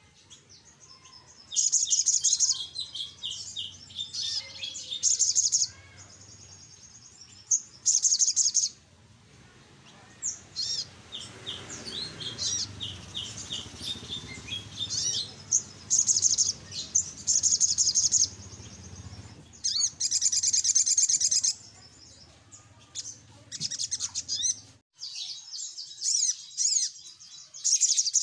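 Sunbird (sogok ontong) singing in loud bursts of rapid, high-pitched twittering trills and chirps, with short pauses between bursts.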